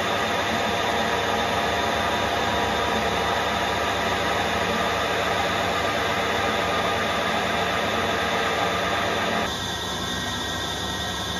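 Harrison M400 geared-head lathe running under power while screw-cutting a fine M24x1.5 thread on a long bar: a steady mechanical whine with several held tones from the gears and spindle. About nine and a half seconds in, the sound drops a little and turns duller.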